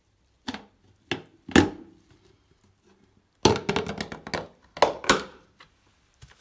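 Plastic paint bucket lid being pried open with a tool: three sharp plastic snaps as the rim clips give, then a quick run of crackling snaps as the lid pulls free, and two more snaps as it comes off.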